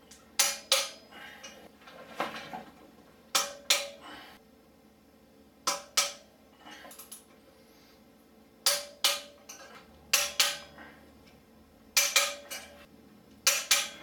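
Torque wrench clicking as it reaches 26 ft-lb on each rear-sprocket bolt in turn: a sharp metallic double click every second or two, about seven times.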